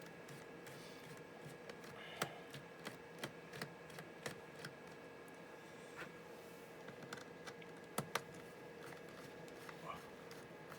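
Sparse, irregular light clicks and taps from working on a laptop's screen assembly, its screws and plastic bezel parts, with a sharp double click about eight seconds in.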